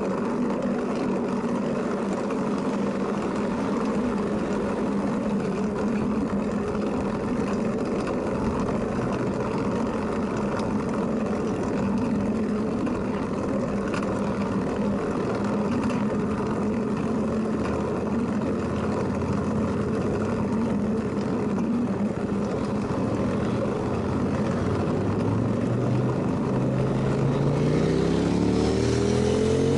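Steady road and wind rumble of riding along a road. Near the end a motor vehicle's engine speeds up, its note rising.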